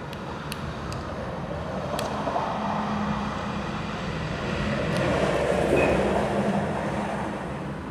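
Vehicle rumble from outside swelling twice as traffic passes, over a steady background hum, with a few light clicks.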